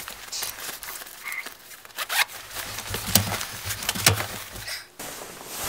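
Nylon ice fishing bibs rustling and swishing as they are pulled on, with scattered clicks and a few soft knocks. The sound breaks off abruptly near the end.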